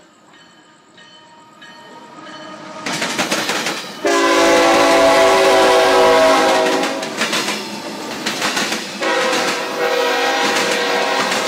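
CSX freight locomotive passing with its air horn blowing a chord of several notes. The train's rumble grows from faint, the first long horn blast starts sharply about four seconds in and fades after three seconds, and a second blast starts about nine seconds in and runs on, over the noise of the wheels on the rails.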